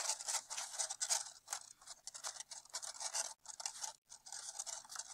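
Sheets of colored paper rustling and scraping as hands handle them and press a glued-on paper piece down onto a paper mask, in short, uneven scratchy strokes.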